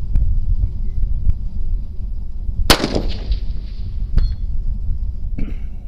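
A single rifle shot from a 6mm ARC AR-15 a little under three seconds in, its report trailing off. About a second and a half later comes a faint ping of the bullet hitting a steel target at about 390 yards.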